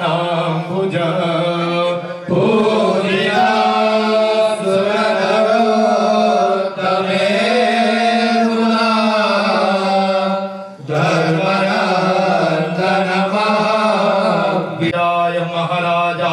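Male voices chanting a Sanskrit meditation (dhyāna) verse over microphones, in long melodic phrases with short breath pauses about two seconds and about eleven seconds in.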